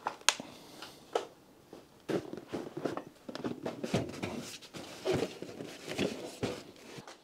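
Handling noises at a car's engine bay: a few sharp clicks, then a run of irregular soft knocks, scrapes and low thuds as a large cardboard box is set down and shifted across the engine bay.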